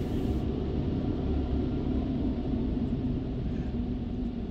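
Automatic tunnel car wash running, heard from inside the car: a steady, muffled rumble of water spray and wash machinery on the car body.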